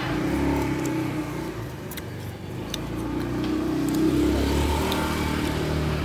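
A motor vehicle engine running on the road close by, revving and growing louder to a peak about four seconds in, then easing off slightly.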